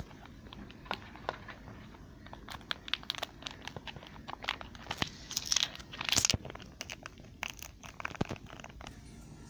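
A knife cutting into a bar of soft white Lux soap: crisp crunching and crackling, many small cuts in irregular succession, with a denser, louder run about six seconds in.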